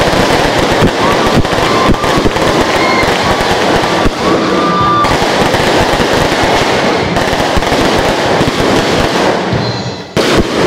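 Fireworks going off in a loud, rapid, continuous crackle of bangs and pops. Near the end there is a brief lull, then a sharp bang.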